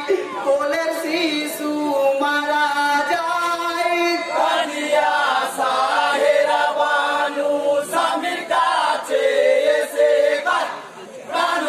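Men singing a Bengali marsiya (Muharram lament) in long, held, wavering lines, a lead voice with a chorus of men, with a brief drop near the end.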